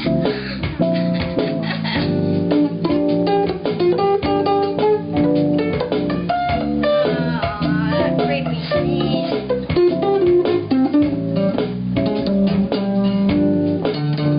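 Guitar playing a blues improvisation in a run of plucked single notes and chords, with notes bending in pitch about halfway through.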